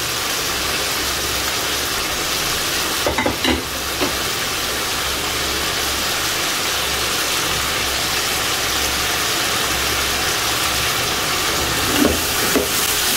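Chicken pieces sizzling steadily as they fry in hot oil with ginger-garlic paste in a nonstick pan. There are a few brief knocks about three seconds in, and spatula strokes near the end as the pieces are stirred.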